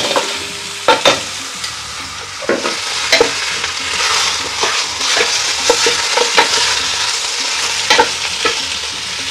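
Seasoned pork rib pieces sizzling in hot oil in a stainless steel pot while they are seared, with knocks and scrapes of a wooden spoon turning them. The pieces land in the oil at the start, and the sizzle grows louder over the first few seconds.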